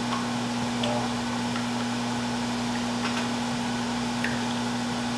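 Microwave oven running with a steady low hum. A few faint light clicks come from a whisk against a bowl as eggs are beaten.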